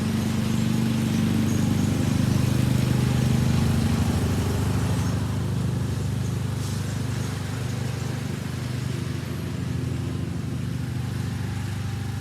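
John Deere riding lawn mower running steadily under a broad hiss, its engine's low hum swelling slightly about two to four seconds in.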